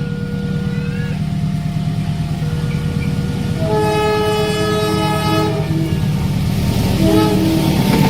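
Indonesian diesel train at a level crossing: the locomotive's engine rumbles steadily while a two-note crossing alarm alternates slowly for the first few seconds. About four seconds in, the locomotive horn sounds one long chord for nearly two seconds, and it gives a short toot about three seconds later.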